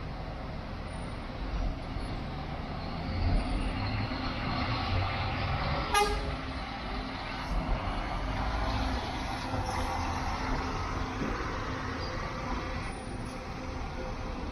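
Double-decker intercity coach's diesel engine running as it drives past, with one short horn toot about six seconds in.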